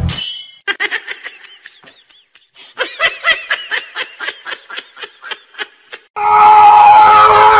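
A person laughing in a rapid run of short, high-pitched bursts, about four a second, with a brief pause about two seconds in. About six seconds in, a much louder sustained sound with steady tones cuts in.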